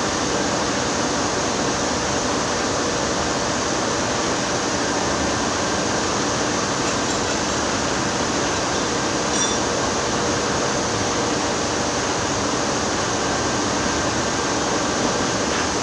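Steady, even noise of running machinery, with no pauses or changes in level.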